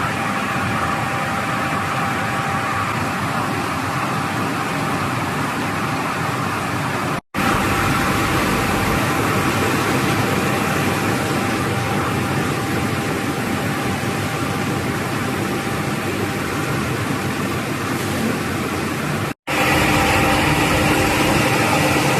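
A horizontal glass washing and drying machine running: steady machine noise with a faint steady hum tone. It breaks off twice, briefly, about a third of the way in and near the end, and is a little louder after the second break.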